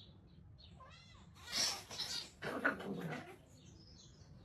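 A cat meowing, several short calls over a steady low hum.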